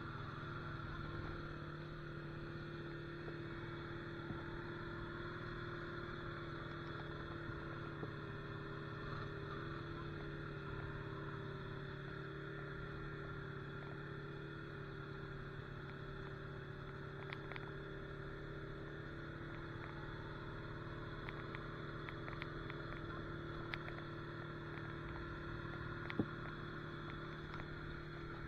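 Honda Rancher ATV engine running steadily at low trail speed, the pitch hardly changing, with a few light ticks and clicks in the second half.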